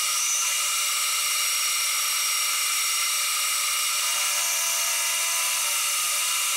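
Milling machine running, its end mill cutting a metal workpiece: a steady high-pitched whine with several steady tones.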